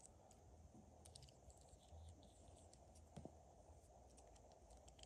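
Faint, irregular clicks and light plastic knocks from a LEGO Technic front axle assembly as it is turned over in the hands, with a slightly louder double knock about three seconds in.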